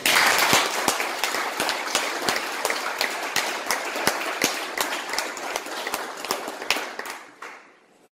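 Audience applauding in a room, starting loud and dying away near the end.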